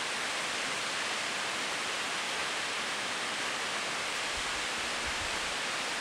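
Steady, even rush of a tall waterfall falling down a cliff face.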